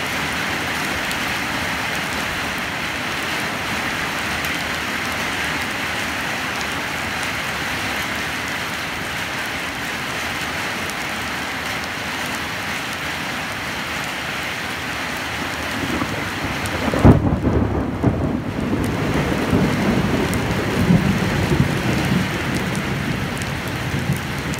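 Steady rain falling as an even hiss. About two-thirds of the way through, a low rumble of thunder starts with a sharp peak and rolls on unevenly to the end.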